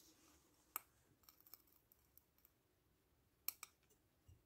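Near silence broken by a few sharp clicks: one about a second in, a close pair about three and a half seconds in, and some fainter ticks between.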